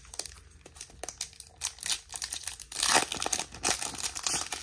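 Foil wrapper of a Topps 2022 Series 2 baseball card pack crinkling in the hands and being torn open, the loudest tearing rustle about three seconds in.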